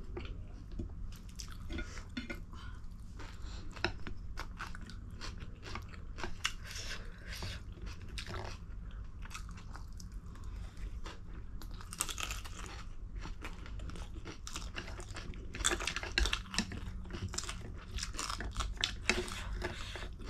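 Close-miked eating: chewing, crunching and wet mouth clicks as people eat spicy instant noodles, over a steady low hum.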